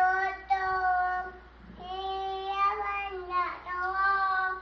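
A toddler girl singing a children's song into a toy microphone, in a few long held notes with short breaks between them.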